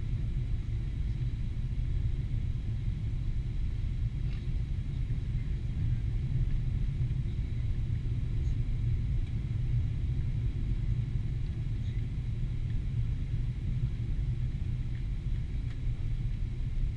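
Steady low rumble inside the cabin of a Boeing 777-300ER on final approach: the noise of its GE90 engines and the airflow over the airframe.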